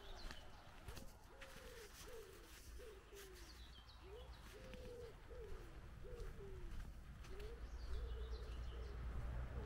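A pigeon cooing in phrases of several low coos, one phrase after another, with small birds chirping faintly over it. A low rumble grows near the end.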